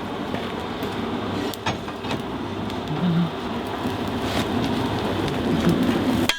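Coal forge fire with its air blower running, a steady rushing noise, with a few light metal clinks.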